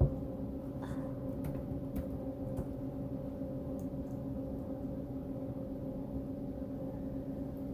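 Laptop keyboard keys clicking as an email address is typed, a few scattered clicks mostly in the first half, over a steady low hum.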